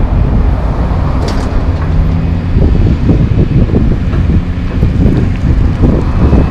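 Diesel engines of a large excavator and a dump truck running at a distance, a steady low rumble, with wind buffeting the microphone.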